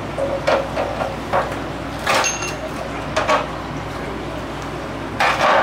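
Short metal knocks and scrapes of pliers and hands working the gas valve loose on a stove's sheet-metal frame, about a half-dozen scattered through, the longest and loudest near the end.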